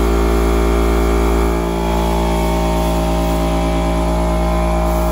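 Electric air compressor running steadily, with a spray gun hissing as it sprays paint.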